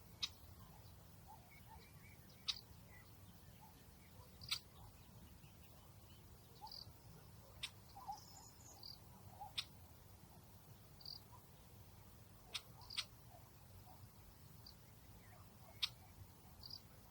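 Faint outdoor nature ambience: about a dozen short, high chirps and clicks scattered irregularly over a low steady rumble.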